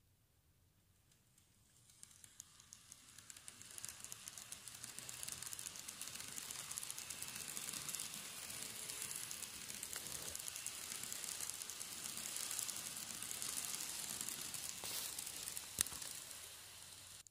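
Model train running along the track: a dry rattling hiss of wheels and motor that builds up over a couple of seconds and then holds steady. One sharp click comes near the end, and the sound cuts off suddenly.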